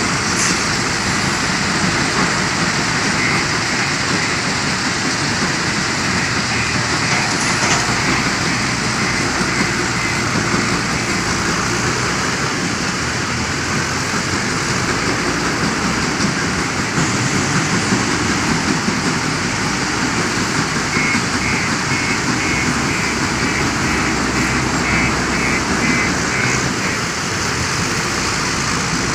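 Steady, loud machinery noise of a stone crusher plant at work, with the diesel engine of a JCB 530-70 telehandler working as it scoops crushed stone and tips it into a dump truck.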